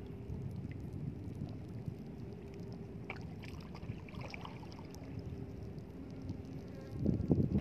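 Wind rumbling on the phone's microphone over shallow seawater at a rocky shore, steady and low, with a few faint clicks in the middle and a stronger gust near the end.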